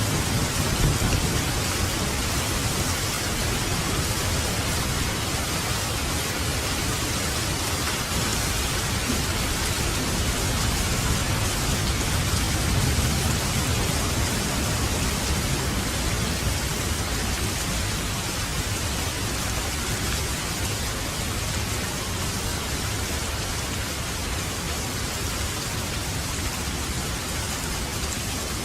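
Steady heavy rain falling, with low rolls of distant thunder swelling near the start and again around the middle.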